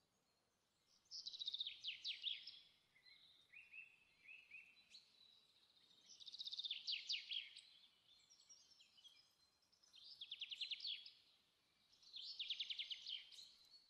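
A bird singing: four phrases of about a second each, every one a fast high trill, with softer short chirps in between.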